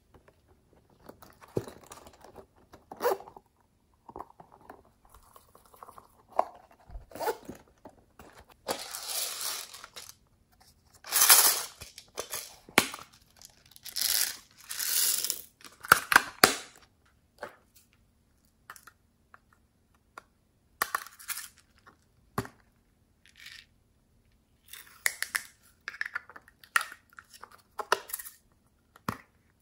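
Hands handling small plastic containers: clicks of lids and cases being opened and set down, with crinkling rustles of plastic, the loudest spell of rustling in the middle.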